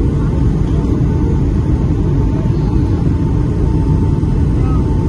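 Steady cabin noise inside a Boeing 757 airliner descending to land: a deep rumble of airflow and engines, with a thin, steady high tone over it.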